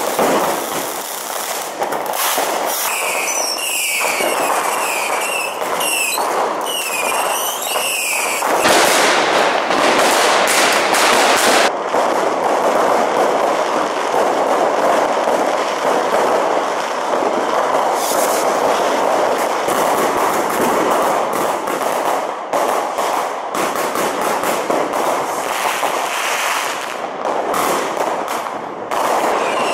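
Street fireworks going off all around: a dense crackling and hissing din of firecrackers and rockets with frequent sharp bangs. Between about three and eight seconds in, a string of short whistles repeats roughly once a second.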